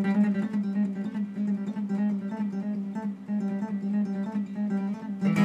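Intro music on acoustic guitar: a picked melody of short notes over a steady low note, with a strummed chord near the end that rings on.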